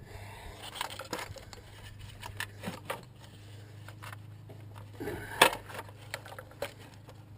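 Scattered metallic clicks, scrapes and knocks of a valve cover being worked loose and lifted off a Jeep V8 engine, with a louder clatter about five seconds in, over a steady low hum.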